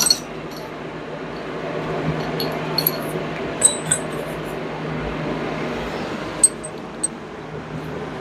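Light metallic clinks of steel head bolts being handled: a few sharp taps scattered over several seconds, over a steady hum and background noise.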